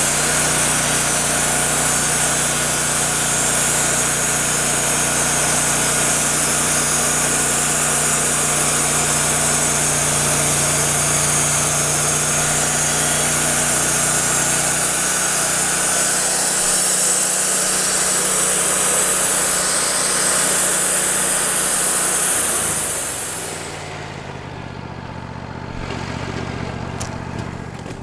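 Wood-Mizer LT40 band sawmill sawing through a large pecan log, its engine running steadily under load with a loud, hissing cutting sound. Near the end the cutting sound stops abruptly and the engine slows as the blade finishes the cut.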